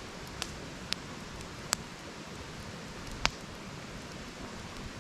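Campfire crackling: a steady hiss with four sharp pops from the burning wood, the loudest about three seconds in.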